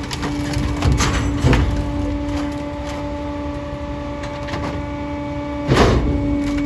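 Rear-loader garbage truck's hydraulic packer running with a steady tone as its blade sweeps down and crushes bulky items in the hopper. Loud cracks and crunches of the items breaking come about a second in, again half a second later, and once more near the end.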